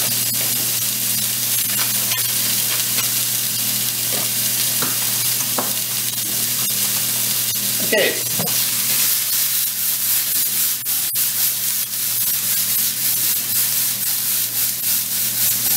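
Cauliflower, mushrooms and shaved garlic sizzling in oil in a nonstick frying pan, with a steady hiss and crackle that gets brighter in the second half. Near the end the pan is tossed. A low steady hum runs underneath.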